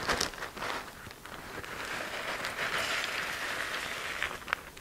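Crushed corn tortilla chips pouring from a plastic zip-top bag into a glass measuring cup: a steady pattering rustle of chip pieces, with a few sharp clicks near the start and again near the end.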